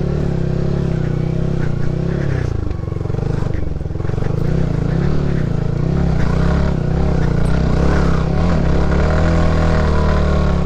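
Yamaha R15 V3's 155 cc single-cylinder engine running at low speed while the bike is ridden across rough ground. The engine note dips and rises several times as the throttle is eased and opened.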